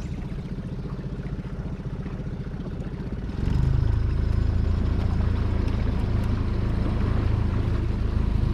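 Small boat's motor running at low throttle, then throttled up about three and a half seconds in, pitch rising briefly before it settles into a louder, steady run.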